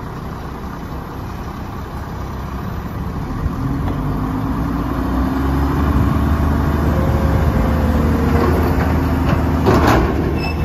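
Mack LE front-loader garbage truck's engine revving up to drive the hydraulic front forks as they lift a container up over the cab, with a steady hydraulic whine. A short rattling clatter comes near the end as the container reaches the top.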